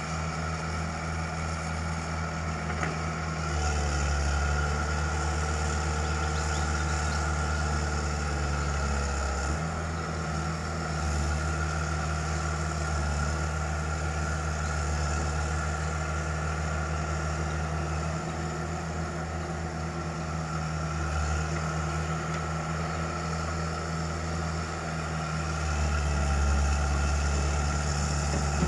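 Heavy excavator diesel engines running steadily while the machines work. The engine note grows louder for several seconds about four seconds in, and again near the end.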